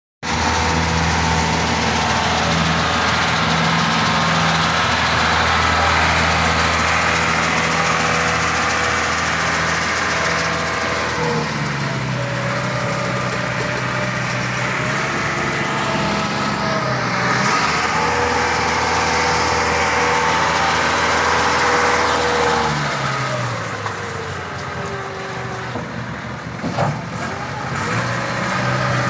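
Diesel engine of a Caterpillar 428 backhoe loader running, its speed shifting up and down several times as the machine is driven and worked. A single sharp knock near the end.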